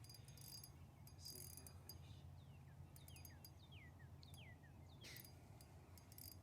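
Near silence: a faint run of about seven short falling whistles, typical of a bird calling, over a low steady hum, with a few faint clicking bursts.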